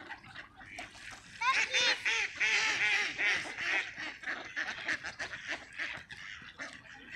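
A flock of water birds calling, many short overlapping calls, loudest and busiest from about a second and a half to four seconds in.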